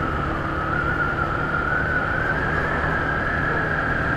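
Motorcycle engine running steadily on the move, with wind rush over the microphone; its pitch creeps slightly upward.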